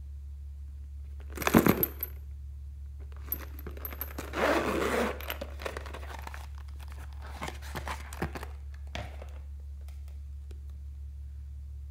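A zippered fabric cosmetic pouch being handled and opened. A sharp metallic clink and rustle comes about a second and a half in, then the zipper is drawn open in about a second. Light clicks and taps follow as a glass nail polish bottle and a plastic tube are taken out.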